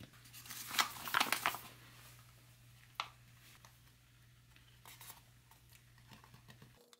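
Foil retort pouch crinkling as it is tipped and squeezed, emptying sliced pears into a metal ration tray, with a sharp tap about three seconds in and a few light ticks after.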